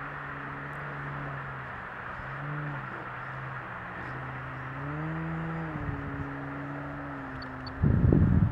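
Large electric RC model airplane's motor and propeller droning in flight: a steady low hum whose pitch rises and falls with the throttle, lifting noticeably about five seconds in. A loud low rumble breaks in near the end.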